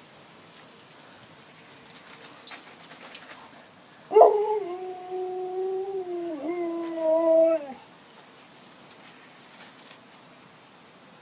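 A dog howling once: one long, steady howl that starts about four seconds in and lasts about three and a half seconds, dipping briefly partway and falling away at the end.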